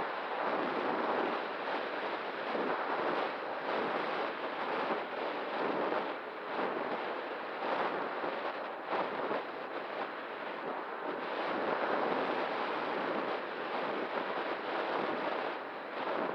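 Wind buffeting the microphone: a steady rushing hiss that swells and eases every second or so, with a faint steady tone underneath.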